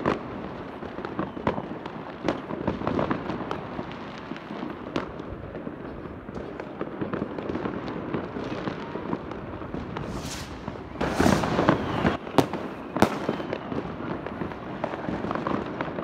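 Fireworks going off all around: a continuous crackle of many bangs and pops, with a flurry of louder bangs about eleven to thirteen seconds in.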